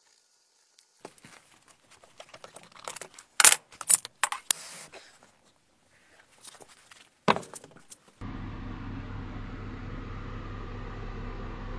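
Crackling and a few loud sharp metallic knocks as a crucible of molten metal is handled and poured into a sand mould. About eight seconds in, a steady low machine hum starts abruptly.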